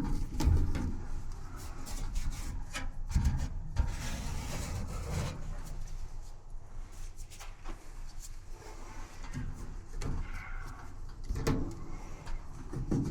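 Dryer parts and tools being handled during a repair: irregular knocks and clunks with rubbing and scraping, and a short hissing stretch about four seconds in.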